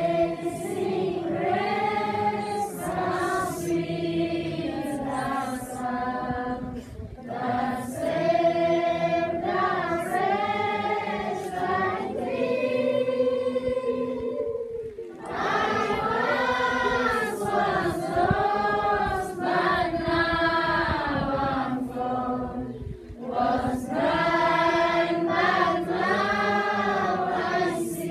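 A large choir of school students singing together, in long sung phrases with short pauses between them about every eight seconds.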